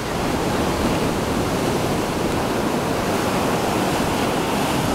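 Ocean surf breaking on a sandy beach: a steady, even rush of noise.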